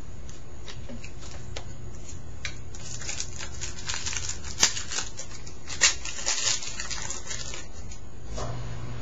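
Trading cards being handled and slid off a stack one by one: soft paper rustles and scrapes, busier in the middle, with two sharper card snaps about halfway through, over a steady low hum.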